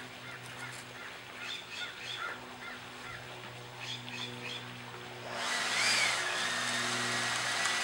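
Birds calling outdoors in short repeated chirps, over a steady low hum. About five seconds in, a much louder steady whooshing noise with a thin whine comes in and covers them.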